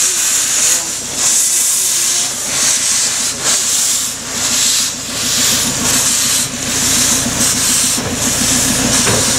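Small narrow-gauge steam locomotive moving slowly with its cylinder drain cocks open, steam hissing loudly in repeated surges about once a second.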